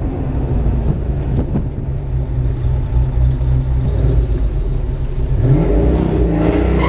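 A 400 hp Ford Mustang's 5.0 V8 rumbling at low revs, heard from inside the cabin. Near the end it revs up with a rising pitch as the car accelerates.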